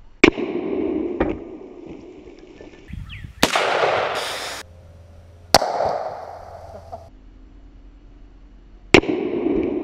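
AR-15 rifle firing single shots a few seconds apart, four loud cracks and one quieter one, each trailing off over about a second. A loud rush of noise follows the shot about a third of the way in.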